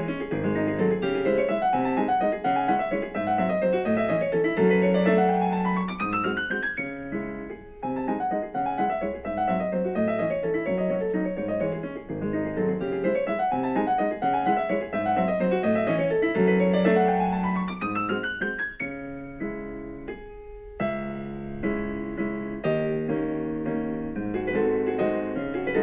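Background piano music: a melody over steady bass notes, with fast upward runs twice, about five and sixteen seconds in.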